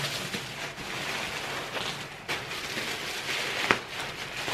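Shredded paper rustling and crackling as hands dig through a cardboard box packed full of it, with a sharper crackle about three-quarters of the way through.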